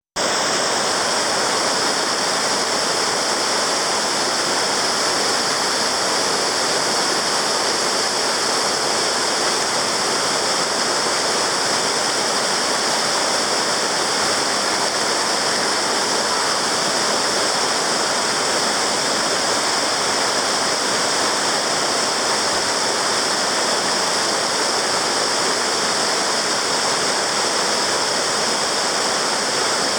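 Water rushing steadily over the rocky cascades of the Irrel waterfalls on the Prüm river: a loud, even, unbroken rush.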